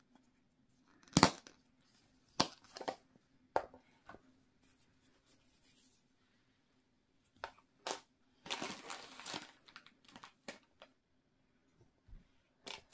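Handling noise from a plastic Play-Doh tub and the dough: sharp plastic knocks and clicks as the lid is pressed back on and the tub is set down, then a rustle of about a second and soft pats as the dough is pressed flat on the table with a hand.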